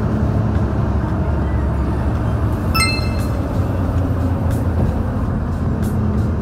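Large truck's stock diesel engine pulling hard uphill at full throttle, a steady low drone heard through a slightly opened cab window. A brief sharp click sounds about three seconds in.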